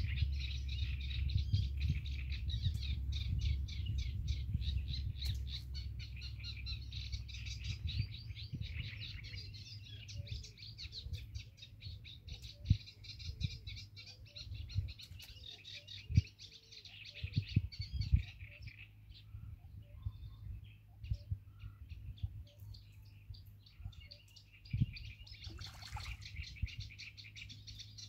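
Songbirds singing in a dense, continuous chorus of rapid chirps, thinning for a few seconds past the middle and then returning. Wind rumbles on the microphone for the first several seconds, and a few low thumps come in the middle.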